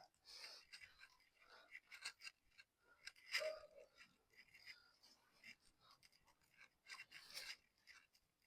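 Faint scratching and rubbing of a solvent-soaked cloth wiping a motorcycle drive chain, in short irregular strokes, with one brief louder sound about three seconds in.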